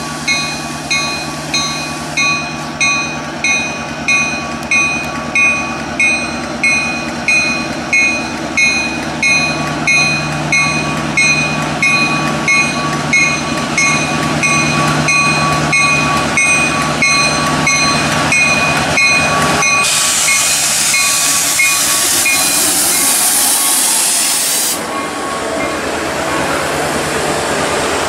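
Bell of an approaching diesel freight train, its two GP38-2 locomotives with 16-cylinder EMD two-stroke engines, ringing about once every 0.7 s over a steady engine drone that grows louder as the train nears. The bell dies away after about twenty seconds, while a loud hiss takes over for about five seconds as the locomotives come close.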